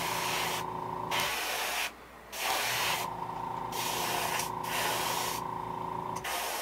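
Airbrush spraying paint in several short hissing bursts, with pauses between them and a steady hum under most of the spraying.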